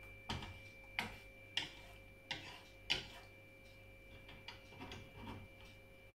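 Wooden spatula tapping and scraping against a non-stick frying pan while turning an omelette: five sharp knocks about two-thirds of a second apart, then a few softer taps near the end.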